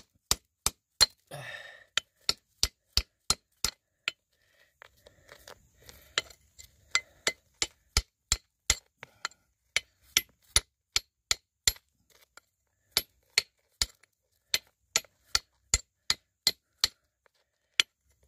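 Steel hammer striking a lump of quartz-bearing rock over and over, chipping it apart to expose gold inside. The blows are sharp and about three a second, with a short pause about four seconds in.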